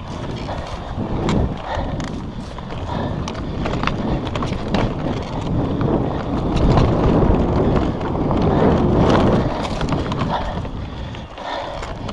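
Wind rushing over the microphone and tyres running on a bumpy dirt trail as an electric mountain bike rides fast downhill, with many small knocks and rattles from the bike over the rough ground. It is loudest a little past the middle.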